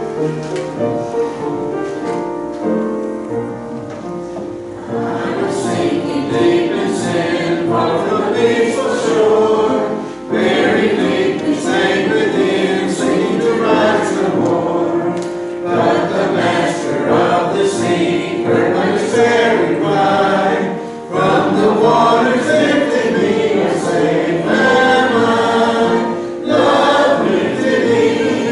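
Church congregation singing a hymn together with instrumental accompaniment. The instrument plays alone for the first few seconds and the voices come in about five seconds in, with short breaks between lines.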